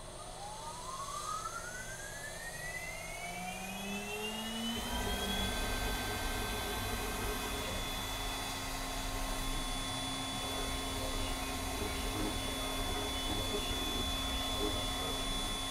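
CNC router's VFD-driven spindle spinning up, its whine rising in pitch over about five seconds, then running at a steady high whine. The spindle is running the toolpath in the air without cutting.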